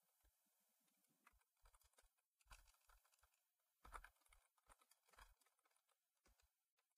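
Faint computer-keyboard typing: a dozen or so short, irregular key clicks over near silence.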